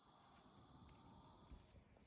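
Near silence: faint background noise with a single soft click.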